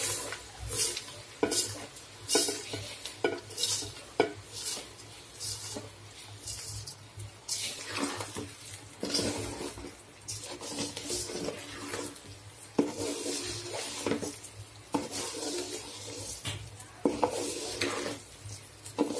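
Wooden spatula stirring and scraping rice and whole spices through hot oil in a metal pot, with a light sizzle. The scraping strokes come about once a second at first, then more irregularly.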